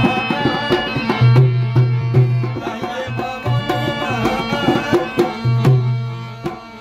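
Rajasthani Manganiyar folk bhajan music: a hand drum beats a steady rhythm under sustained, ornamented melody notes.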